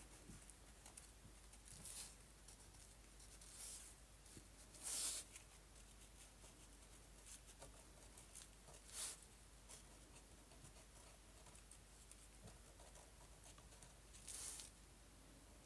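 Fine-tip drawing pen scratching on paper in faint short strokes, about five of them spaced a few seconds apart, the loudest about five seconds in.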